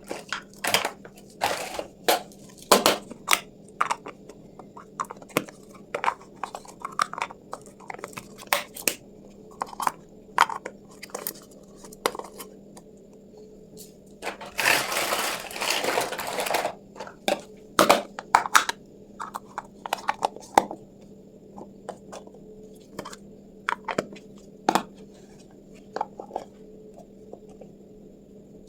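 Small pieces of a miniature Hello Kitty toy kitchen set being handled and set down: scattered light clicks and clinks, with a louder noisy stretch about two seconds long midway.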